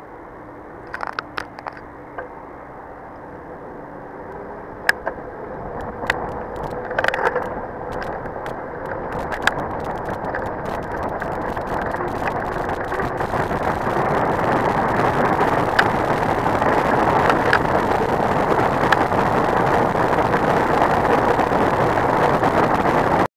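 Wind and road noise from a mountain bike speeding downhill on an asphalt road. The rush grows steadily louder as the bike nears about 54 km/h, with scattered sharp clicks and knocks.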